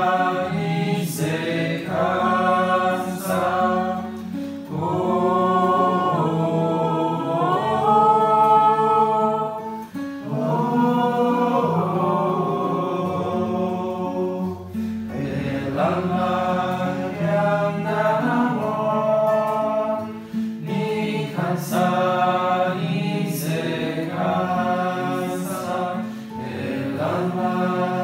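Music: a group of voices singing a song together, with guitar accompaniment.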